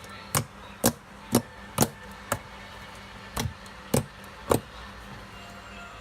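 Fluffy slime being handled and pressed after kneading, giving sharp little pops about two a second: five in a row, a short pause, then three more.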